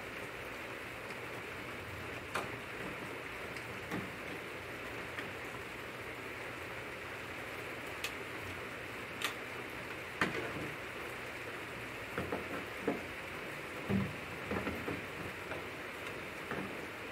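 Steady hiss with scattered sharp clicks, and a denser run of small knocks in the second half, as parts and tools are handled while a Mercedes W202 door lock is reassembled.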